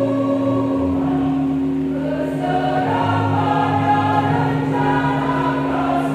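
Large choir singing in harmony, holding long chords that shift every second or so over a sustained low note.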